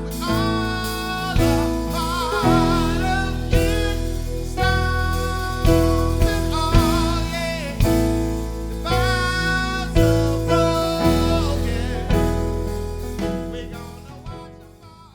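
Music with a sung melody over sustained chords and a bass line, marked by a beat about once a second, fading out near the end.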